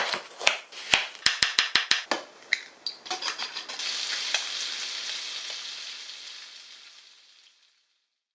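A quick run of sharp clicks, then food sizzling in a hot pan, the sizzle fading out over a few seconds.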